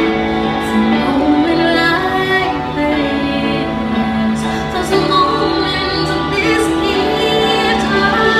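A singing voice over instrumental backing, drawing out long held notes that glide from one pitch to the next.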